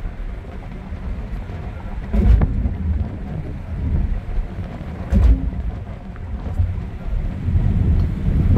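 Low road-and-wind rumble inside a Kia car's cabin as it coasts in neutral at about 95 km/h, with two heavier thumps about two and five seconds in.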